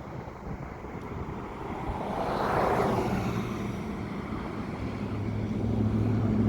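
Outdoor traffic noise: a vehicle passing, its noise swelling to a peak about two and a half seconds in and fading away, then a low engine hum building near the end.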